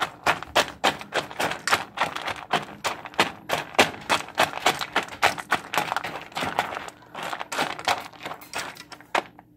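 A spoon stirring dry kibble and rice in a stainless steel dog bowl: a quick run of clinks and scrapes on the metal, several a second, that stops shortly before the end.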